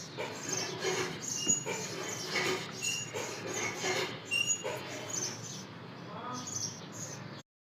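Short, high bird chirps over people's voices in the background; the sound cuts off suddenly near the end, leaving silence.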